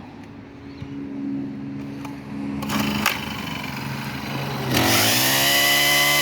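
Honda pole chainsaw engine idling, then revved to full throttle about four and a half seconds in, the pitch climbing quickly and holding high with the chain spinning, as a check of the freshly tightened chain.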